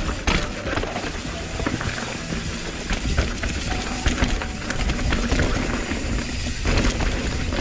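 Ragley Big Al aluminium hardtail mountain bike being ridden on a trail: a steady rush of tyre and wind noise with frequent rattles and knocks from the bike.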